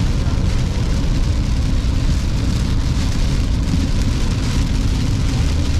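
Heavy rain falling on a moving car's windshield and body, heard from inside the cabin over a steady low rumble of the car on the wet road.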